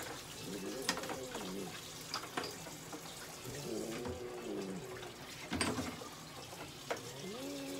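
Cat meowing three times, each a drawn-out call of about a second that rises and falls in pitch, with a few sharp clicks between them.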